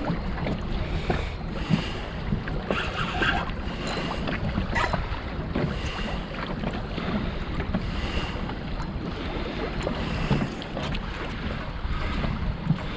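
Wind buffeting the microphone over water lapping around a small boat's hull.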